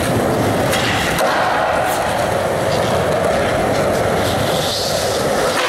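Skateboard wheels rolling on smooth concrete, a steady loud rumble with a few light clicks.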